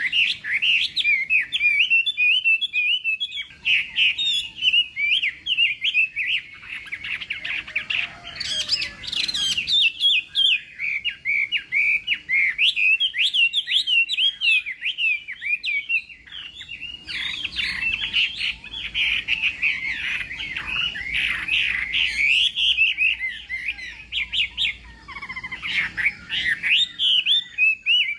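Chinese hwamei singing a long, rapid song of varied whistles and trills, with only brief pauses between phrases.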